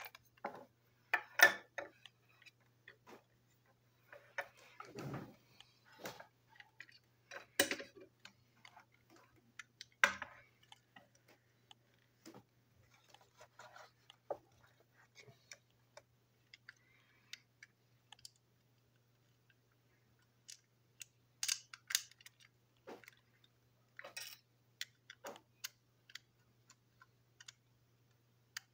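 Irregular clicks, taps and clacks of hard plastic parts as a small toy locomotive is handled and pulled apart on a tabletop, a few louder clacks standing out. A faint steady low hum runs underneath.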